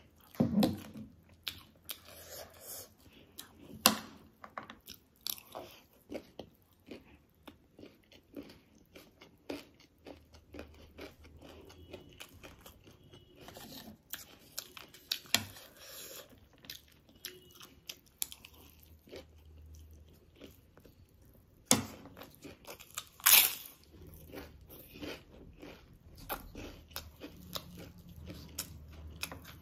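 Close-up crunching and chewing of chatpate, a spicy puffed-rice snack mix, with dhungri (gol finger) fried crisps: irregular crunchy bites between quieter chewing. A few bites stand out louder, one near the start and the loudest a little past two-thirds of the way through.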